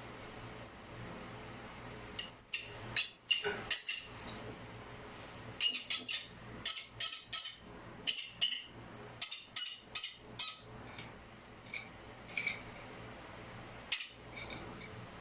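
A bird chirping: a run of short, high, repeated calls, some sliding down in pitch, over a steady low hum. They come thickest in the middle and grow fainter near the end.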